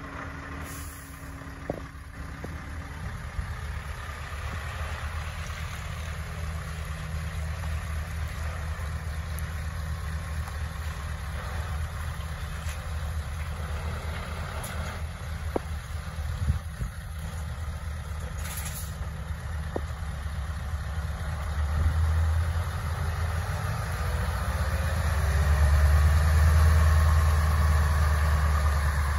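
Scania S650 tractor unit's V8 diesel engine running at low revs as the truck moves slowly. It gets louder in the last several seconds as it comes closer, with a faint rising tone, and a few short clicks in the middle.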